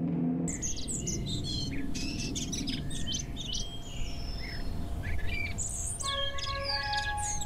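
Many birds chirping and singing in quick, high, rising and falling calls over a low steady rumble. About six seconds in, music with held notes comes in under the birdsong.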